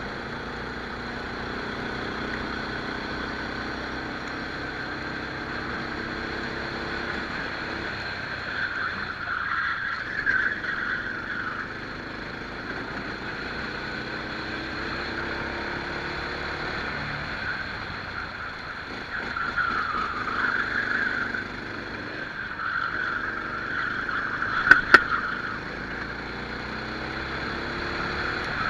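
Rental kart's small engine running at racing speed, heard from onboard, its pitch rising and falling over and over as it accelerates and lifts off through the corners. Two sharp clicks near the end.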